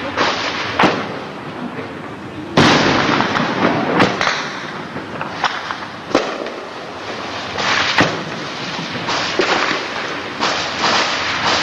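Combat gunfire and explosions: sharp, loud reports every second or two over a continuous crackle of firing.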